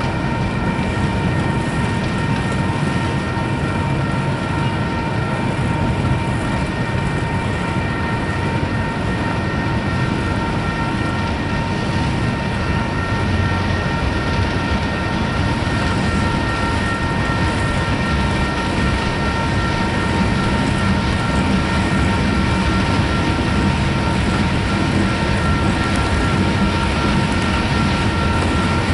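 Freight train cars rolling slowly past: a steady rumble of steel wheels on rail, with a steady high whine over it.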